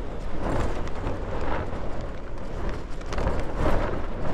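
Gusty wind blowing hard across the microphone, rising and falling, with the nylon fabric of a Hilleberg Soulo tent flapping in it.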